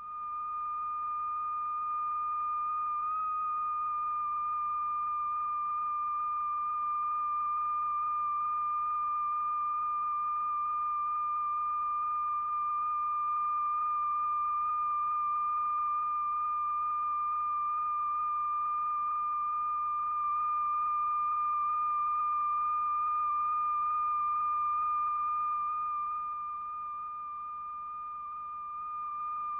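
A steady, high-pitched electronic sine tone from the oscillator that vibrates the powder-strewn diaphragm, with a faint overtone above it. It wavers briefly about three seconds in and softens slightly near the end.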